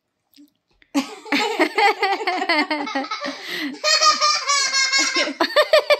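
Hearty laughter, starting about a second in and going on in quick, wavering peals.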